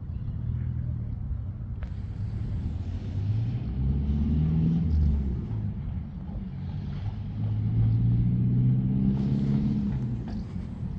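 Low hum of a motor engine, growing louder twice, about four seconds in and again around eight to ten seconds in, over a steady low rumble.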